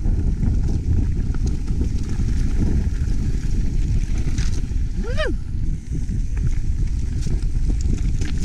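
Wind rushing over the camera microphone and the rumble and rattle of a mountain bike running down a rough trail, with scattered small ticks. About five seconds in, one brief pitched sound rises and then falls.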